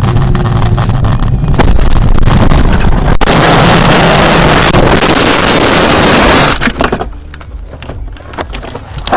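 A car ploughing off a snowy road into a snowbank, heard from inside the cabin: road and engine rumble, then about three seconds in a loud rushing hiss of snow blasting over the body, which stops abruptly after about three and a half seconds and gives way to scattered knocks and rattles.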